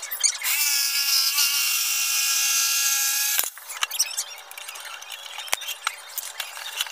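Handheld electric jigsaw running as it cuts a wooden board, a steady whine for about three seconds that stops suddenly. Then light clicks and knocks as the C-clamp holding the board is loosened and the wood is handled.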